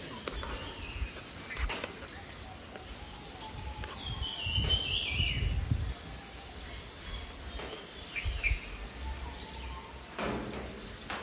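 Steady high trilling of insects such as crickets, with a short bird call stepping down in pitch about four seconds in, and a few faint knocks.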